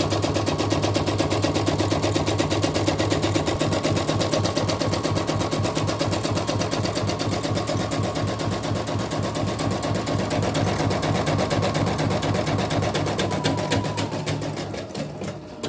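Yoko portable computerised embroidery machine stitching a test design: a fast, even run of needle strokes over the motor's hum, easing off near the end.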